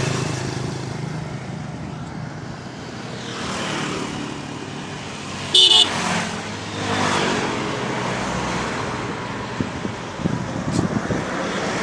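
Motor vehicles passing, with a short, loud horn toot a little over halfway through.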